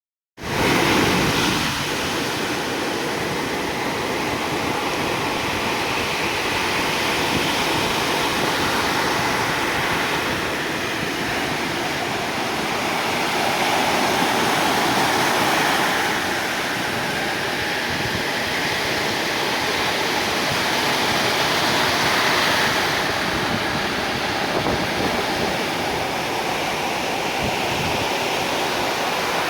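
Ocean waves surging and breaking on the shore: continuous surf that swells louder a few times.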